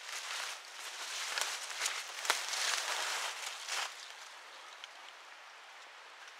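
Dry leaves and brush rustling in uneven surges as someone pushes through undergrowth on foot, with one sharp snap about two seconds in; it settles to a faint hiss for the last couple of seconds.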